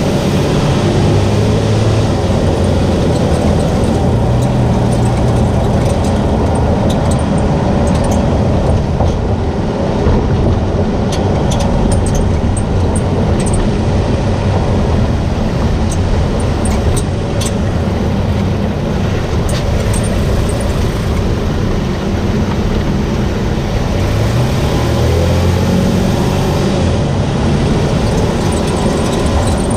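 2022 Toyota Tacoma on the move, with steady road and engine noise; the engine pitch rises and falls a few times, most clearly near the end. Short, sharp high squeaks come now and then through the middle stretch: the front passenger-side squeak.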